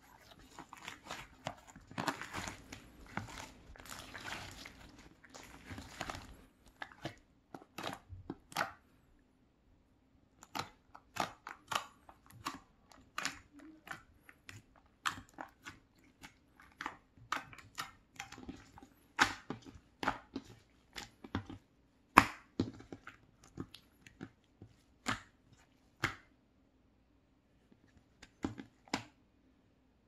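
Glossy pink slime being squeezed and kneaded by hand: a dense run of wet crackling and squelching, then, from about eight seconds in, separate sharp clicks and pops as the fingers press and poke into it.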